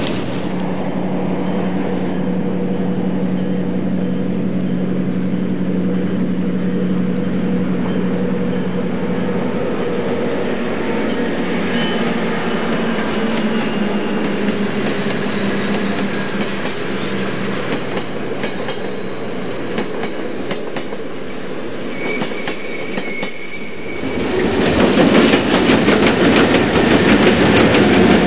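HO scale model trains running on the track: a steady motor hum with wheels clicking over the rails. About 24 seconds in it turns louder, with rapid clicking, as a diesel-led freight train passes close by.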